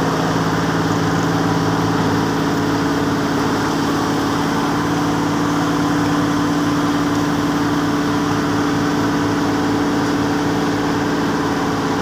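Asphalt paver's diesel engine running steadily, an even hum with several steady tones.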